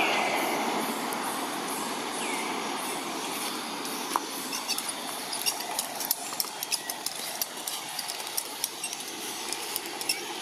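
Rushing noise of passing road traffic, fading over the first few seconds, with two short falling squeals near the start, then light scattered clicks.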